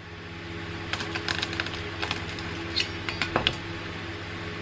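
Shell of a boiled salted egg crackling as it is cracked and pried apart by hand, a run of small sharp clicks over a couple of seconds, over a steady low hum.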